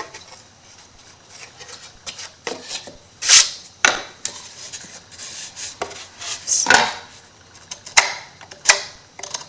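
Craft tools and materials handled on a tabletop: scattered clicks, taps and short scrapes, with the loudest scrapes a little after three seconds in and near seven seconds.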